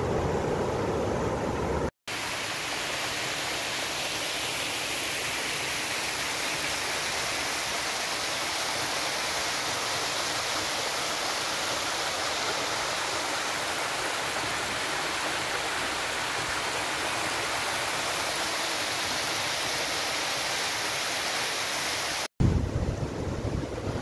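Small stream of water rushing over gravel and stones, a steady hiss. For the first two seconds there is instead a lower wash of river water with wind on the microphone, ending at a cut.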